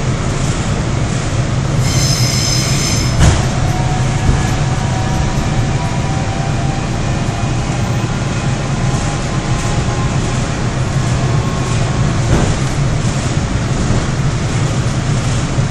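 Seoul Metro 4000-series electric subway train running, heard from inside the passenger car as a steady low rumble. About two seconds in a brief high wheel squeal ends in a sharp clunk, followed by faint whining tones for several seconds and another light knock.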